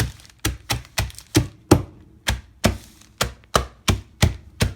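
Chex cereal being pounded in a zip-top plastic bag to crush it. About fifteen sharp knocks come roughly three a second, in an uneven rhythm.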